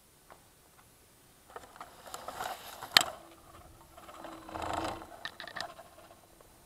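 Handling noise on a Hubsan X4 Pro quadcopter as it is turned over and lifted out of tall grass: rustling and plastic scraping, with one sharp knock about three seconds in as the loudest sound.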